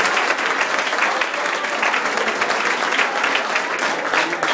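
Crowd applauding, many hands clapping without a break.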